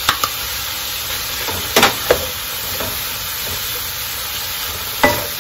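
Shrimp, bell peppers and shredded carrots sizzling on high heat in a wok as they are stirred with a wooden spoon. The spoon knocks sharply against the wok a few times, loudest just under two seconds in and again near the end.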